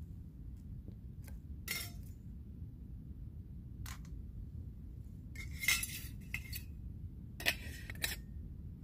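Metal camping pot, frying pan and Trangia alcohol stove clinking and scraping against each other as they are handled and set down: several separate clinks, the loudest cluster about two thirds of the way in and again near the end, over a low steady rumble.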